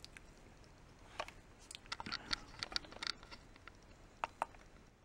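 Small plastic clicks and rattles of spring-loaded test-hook clips being fastened to the legs of an electrolytic capacitor, then two quick clicks near the end as the MK-328 component tester's test button is pressed.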